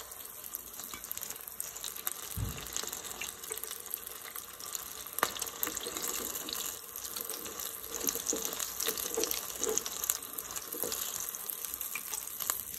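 Breaded calamari rings deep-frying in hot oil in an electric deep fryer: a steady crackling sizzle. A low bump comes about two seconds in, and a sharp click near the middle.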